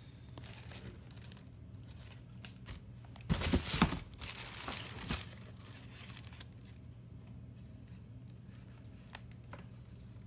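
Tissue paper in a shoebox crinkling and rustling as a shoe is handled and lifted, loudest in one burst about three to four seconds in, then lighter rustles and a few small clicks.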